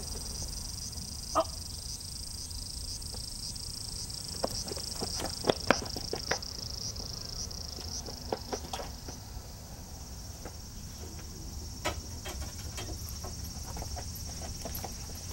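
Cicadas droning steadily in a high, evenly pulsing chorus. Over it come scattered sharp taps and knocks, the loudest about five to six seconds in.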